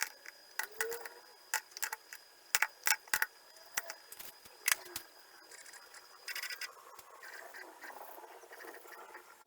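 A run of irregular sharp clicks and knocks over the first five seconds or so, then a brief buzz about six seconds in, over a faint steady high-pitched whine.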